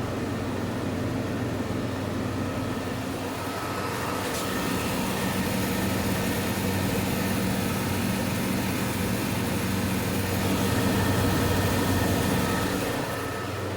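1998 Kenmore window air conditioner running, its Bristol reciprocating compressor giving a steady low hum under the even rush of the fan blowing cold air.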